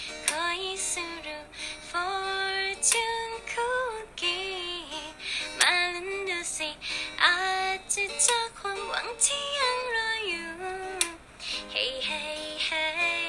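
A young woman singing a slow melody of held notes that step up and down, accompanying herself on a small acoustic guitar.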